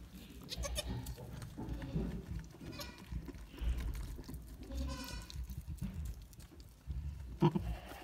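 Newborn goat kids bleating: a few short, high calls a couple of seconds apart, over soft low rustling.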